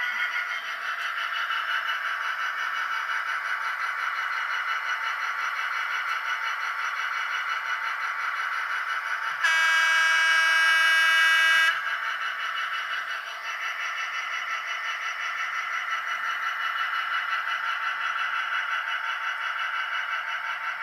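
Sound-fitted model Class 66 diesel locomotive playing its diesel engine sound through a small on-board speaker, running steadily. About nine seconds in, the model's horn sounds once, a single loud note held for about two seconds.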